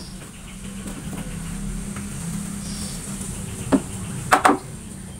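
Three sharp wooden knocks, one about three-quarters of the way in and a quick pair near the end, over a low steady hum.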